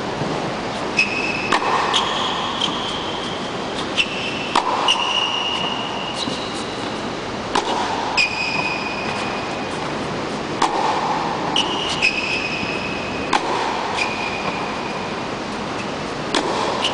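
Tennis balls being struck with a racket in a rally on an indoor court: sharp pops every second or two, some with a duller ball bounce near them, and short high squeaks between the hits. A steady rushing noise runs underneath.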